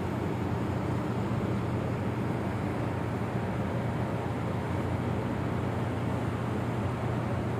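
Steady low drone of a large merchant ship under way, an even rumble with a rushing hiss above it and no separate sounds.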